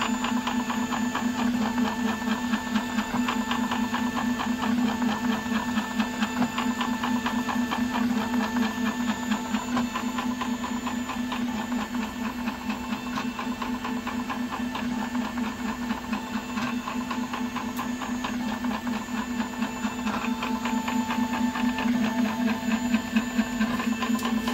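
Home-built FDM 3D printer running a large print: its stepper motors give a steady hum broken by rapid, even ticking pulses as the print head moves.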